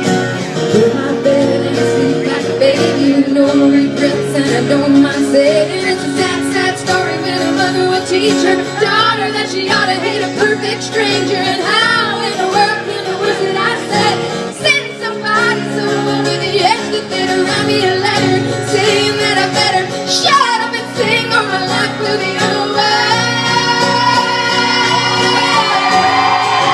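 Country-style band music with a woman singing the lead, her voice wavering with vibrato, and rising into long held high notes near the end.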